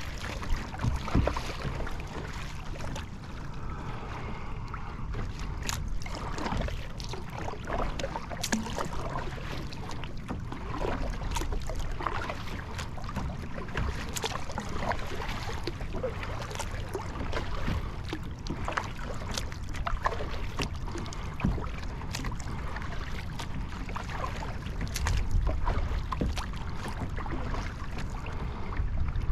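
Water lapping and splashing around a Field & Stream Eagle Talon 12 kayak, with irregular small splashes and knocks and a steady low wind rumble on the microphone.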